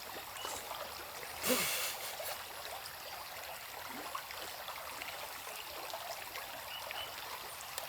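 Steady rushing and trickling of a stream, with one brief louder noise about one and a half seconds in and a few faint chirps.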